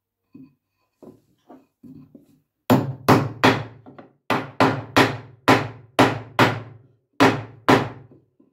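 Hammer driving a small nail into a pine board: a few light setting taps, then about ten hard, evenly paced blows, each with a short ring.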